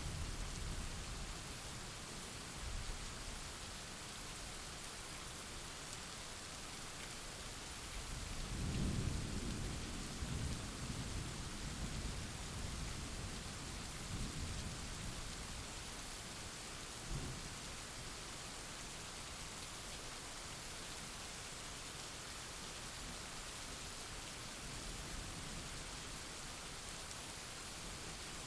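Steady heavy rain in a thunderstorm with rolling thunder: a rumble fading at the start, a longer rolling peal about a third of the way in that dies away over several seconds, and a short low crack a little past halfway.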